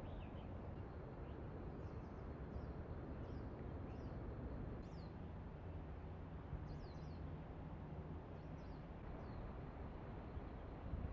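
Small birds giving short, high, downward-sliding chirps every second or so over a steady low rumble of background ambience.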